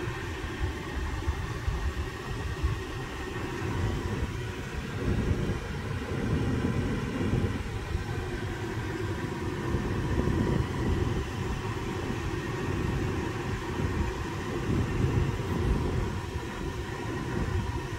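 Air conditioning blower running steadily in the cabin of a Kia EV6 just after it was switched on, a constant rush of air with a faint steady tone, under an uneven low rumble.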